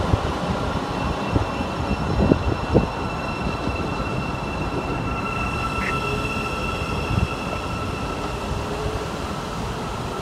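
Train running through a station on the East Coast Main Line: steady rumble of wheels on rail with a steady high whine over it and a few light knocks.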